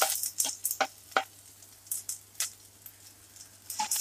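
Ginger sizzling in hot oil with cumin in a nonstick kadhai, while a spatula stirs it in short scraping strokes against the pan. The sizzle is loudest at the start and rises again near the end.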